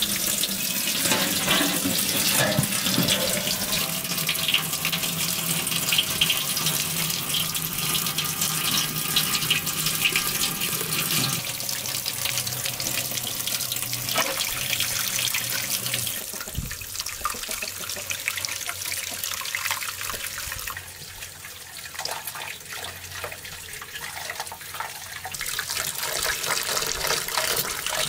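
Water running from an outdoor tap into a metal basin, splashing onto a sturgeon as it is washed and cleaned by hand. The splashing grows quieter about two-thirds of the way through, then picks up again near the end.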